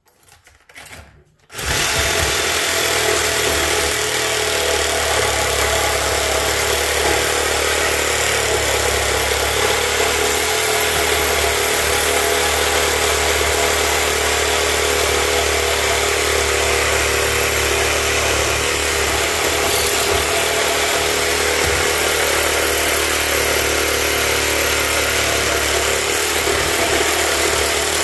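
Battery reciprocating saw with a 12-inch Diablo blade cutting the crown (the winding end-turns) off an electric motor stator. After a few small knocks it starts about a second and a half in and then runs steadily at full speed.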